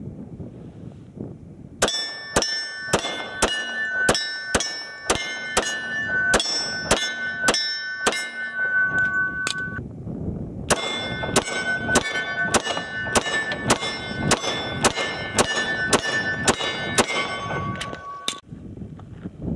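HK Mark 23 .45 ACP pistol fired rapidly in two strings of about three shots a second, with a short break about ten seconds in. Sharp shots mixed with the clear ringing clang of steel targets being hit.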